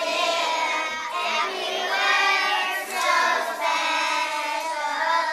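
A group of young boys singing a song together.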